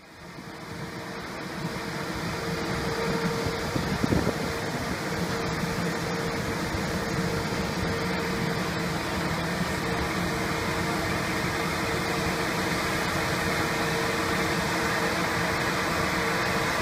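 Fan of a SkanCraft Dust35A mist cannon running with a steady hum and the hiss of its water spray, growing louder over the first two to three seconds. A brief knock about four seconds in.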